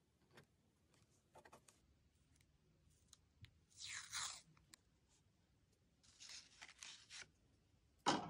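Washi tape being peeled off its roll in two short pulls, a crackly tearing sound, followed by a louder, sharper crunch about 8 seconds in.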